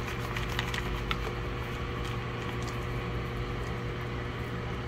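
Steady low kitchen hum, with a few light ticks and patters in the first second or so as chopped walnuts are shaken from a plastic container onto a baking dish of gnocchi.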